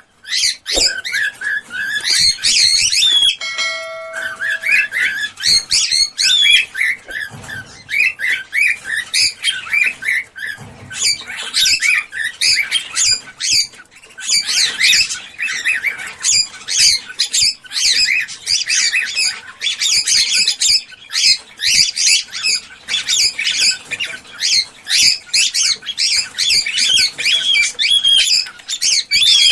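Cockatiels chirping and squawking in a dense, continuous stream of short calls, with a brief held whistle-like tone about four seconds in.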